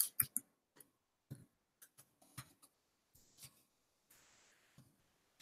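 Faint computer keyboard keystrokes, irregular clicks as text is typed, quick at first and then sparser.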